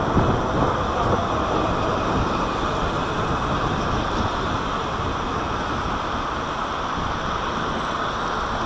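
Steady rush of wind on a bicycle-mounted camera's microphone while riding, mixed with road traffic. It eases a little as the bike slows.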